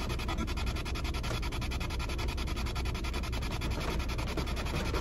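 Spirit box sweeping through radio frequencies: a steady hiss of static chopped many times a second.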